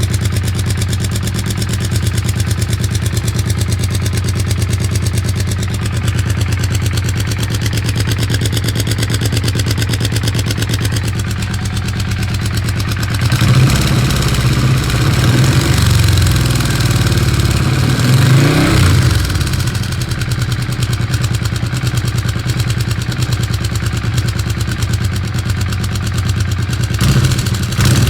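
An engine idling steadily, then revved up and down for several seconds about halfway through before settling back to idle, with a short rev near the end.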